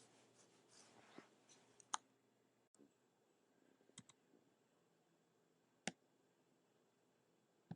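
Faint, sparse clicks of a computer mouse: a soft rustle over the first two seconds, then single clicks about 2 s in, a quick pair near 4 s, one near 6 s and one at the very end.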